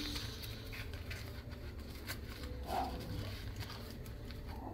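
Faint rustling of paper bills being slid into a clear plastic cash envelope, with a few light clicks and crinkles of the plastic, over a low steady hum.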